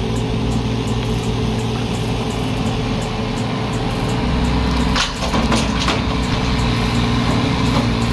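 Excavator's diesel engine running steadily while loading soil onto a truck, with a brief clatter of knocks about five seconds in.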